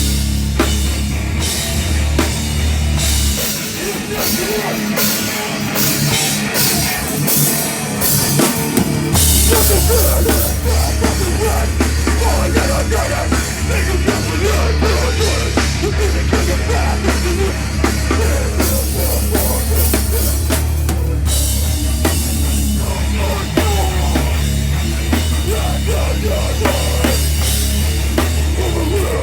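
A heavy rock band playing live, with a drum kit and a dense, loud full-band sound. About three and a half seconds in, the low bass drops out for several seconds, then the full band comes back in.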